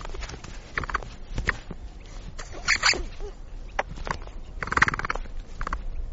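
Capybara making short calls of rapid clicks, five or so in a few seconds, the loudest about halfway through and again near the end.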